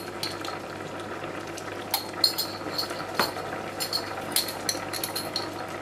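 Potato and celeriac soup simmering in a stainless steel pot: irregular small bubbling pops over a steady hiss.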